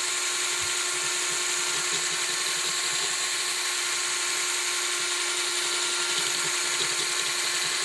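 A small power tool runs at a constant speed, its steady hum overlaid by a grinding hiss as old solder and pitting are ground off a soldering iron's screw-in tip.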